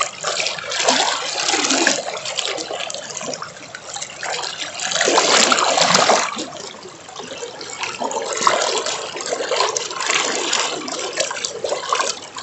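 River water flowing and splashing, a continuous rushing that swells and ebbs, loudest about five to six seconds in.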